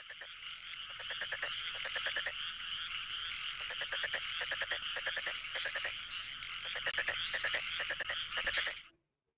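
A dense frog chorus of overlapping croaks and rapid pulsed trills, with short rising calls repeating about every second. It cuts off shortly before the end.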